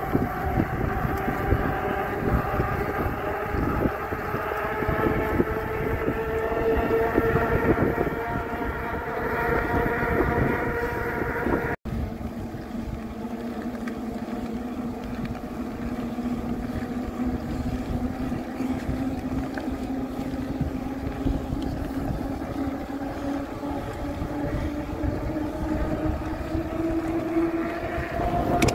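Electric hub motor of a RadPower RadRover 6 Plus fat-tyre e-bike whining under power on pavement, a stack of tones that climbs slowly in pitch. After a brief dropout about twelve seconds in, the whine is lower and again rises gradually. Wind buffets the phone's microphone.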